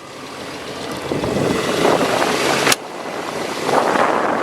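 Wind gusting across the microphone, a rushing noise that builds up, breaks off after a sharp click about two and a half seconds in, then builds again.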